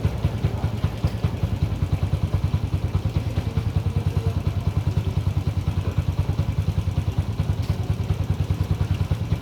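Yamaha Mio i 125 scooter's single-cylinder four-stroke engine idling with a steady, even exhaust beat, freshly rebuilt after a top overhaul.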